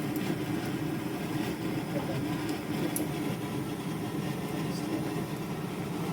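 Samosas frying in a pan of hot oil: a few faint crackles over a steady low kitchen hum.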